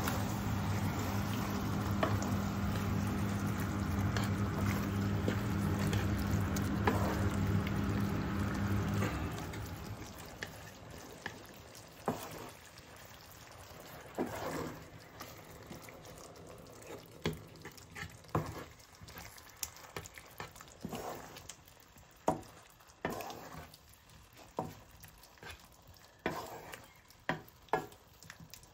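Slotted wooden spatula stirring a thick, creamy curry sauce in a pan: wet stirring with irregular soft scrapes and taps against the pan. Through the first third a steady low hum sits under it, then stops.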